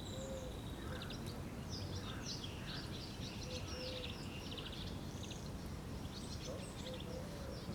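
A songbird singing a long, varied song of quick high chirps and trills over a steady low background rumble, with a few faint lower notes.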